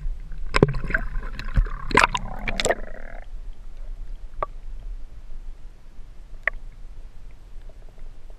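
Knocks and splashing as an action camera is plunged into the water. About three seconds in the sound turns muffled: the low underwater rumble of creek water, broken by a couple of faint clicks.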